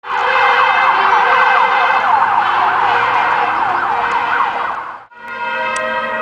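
Emergency vehicle siren of the Hungarian fire and disaster-management service in a fast yelp, its pitch sweeping rapidly up and down several times a second. Just after five seconds it cuts out briefly and returns as steady held tones.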